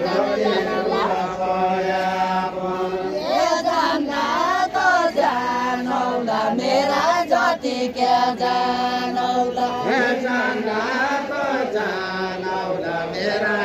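A group of men and women singing a Deuda folk song together, in long held notes that waver and glide in pitch.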